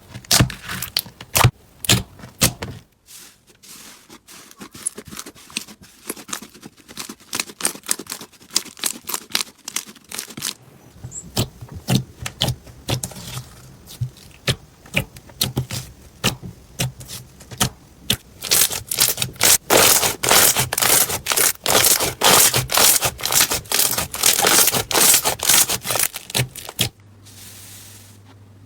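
Slime being squeezed and pressed by hand, giving rapid runs of sharp pops and crackles. The clicking is densest and loudest from about 19 to 27 seconds in, and thins out sharply near the end.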